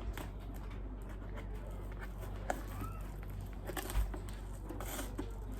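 Cardboard shipping box and packing tape being torn open by hand: scattered crackles and rustles, with a thump about four seconds in.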